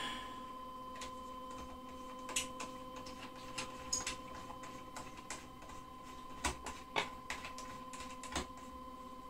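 Scattered light clicks and taps of hands working parts on an Anycubic Photon Mono resin 3D printer, over a steady hum with a thin whine from the Anycubic Wash & Cure station curing a print on its turning platform.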